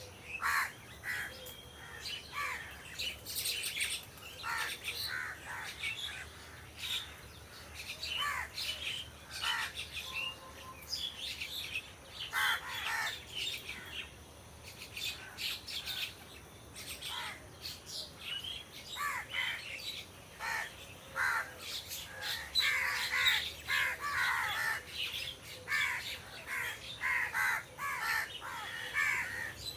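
Crows cawing: many short, harsh calls overlapping one another, growing busier and louder near the end.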